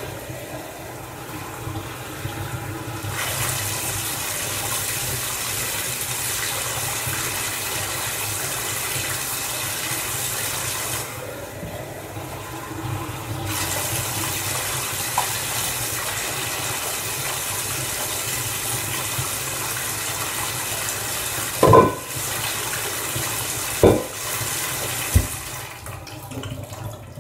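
Bathtub tap running steadily, with water splashing as a cup is filled and poured over a puppy to wet its coat; the rush of water thins briefly twice. Two sharp knocks about two seconds apart near the end are the loudest sounds.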